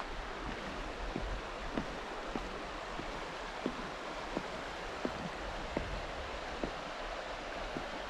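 Steady rushing of river rapids, with footsteps on the trail about every two-thirds of a second.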